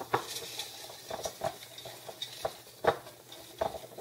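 A hand rummaging through folded paper number slips in a small pail: irregular rustling with light clicks.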